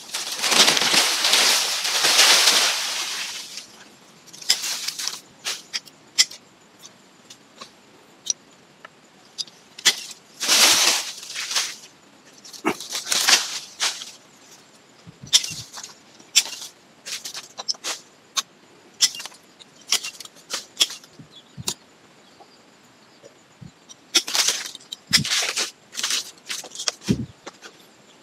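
Leafy branches and foliage rustling and scraping as they are pushed aside and brush past, in irregular swishes of varying length with scattered sharp snaps and clicks.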